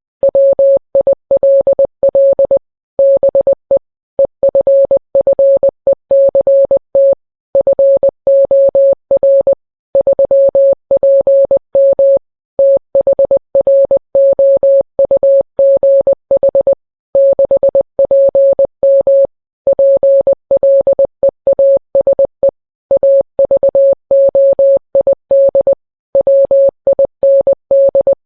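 Morse code: a single steady mid-pitched tone keyed on and off in short and long beeps, with brief silent gaps between letters and longer ones between words, spelling out a message the uploader translates as a tornado warning.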